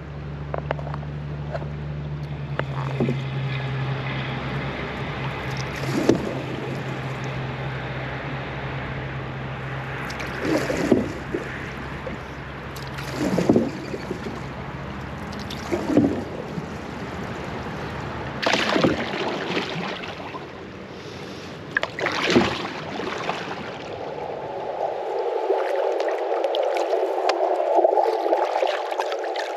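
Canoe paddle strokes, the blade dipping and pulling through canal water every few seconds. Near the end a steady gurgling rush of water takes over.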